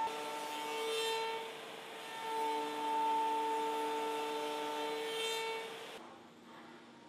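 CNC machining center spindle whining at a steady high pitch over cutting noise, swelling and easing, with two brief rising sweeps. It stops abruptly about six seconds in, leaving faint hiss.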